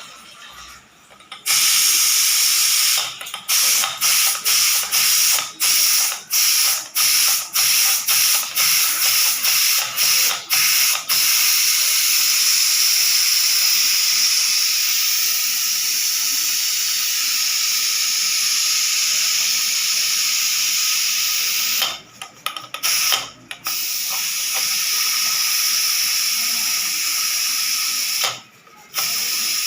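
Pressure cooker whistle blowing off steam, forced by hand: a loud high hiss that starts about a second and a half in. At first it is chopped by quick breaks, about one and a half a second, then it runs steady for about ten seconds, with a few more short breaks near the end.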